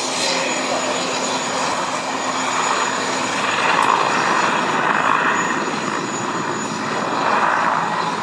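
Mil Mi-24 'Hind' attack helicopter flying past: a steady noise of its main rotor and twin turboshaft engines that swells and fades several times as it manoeuvres.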